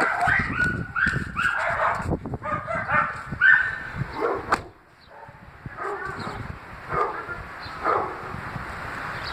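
Strong gusty wind buffeting the microphone and rustling through trees. Over it in the first half come short high-pitched, wavering yelps, like an animal's calls, fading to a few fainter ones, and then only the steady rush of wind.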